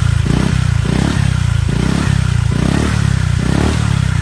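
Motor scooter with an Exos R6 aftermarket exhaust pipe, running and being revved in short repeated throttle blips, about one a second: an exhaust sound test.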